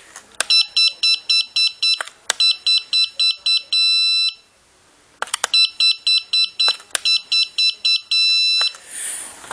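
Radio-control transmitter trim buttons beeping: two runs of short, quick beeps, about four a second, as the trim is stepped. Each run ends in one long beep, the signal that the trim has reached center.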